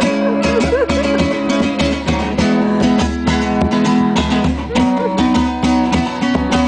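Acoustic guitar strummed in a steady, even rhythm over a low pulsing bass, as instrumental music between sung lines.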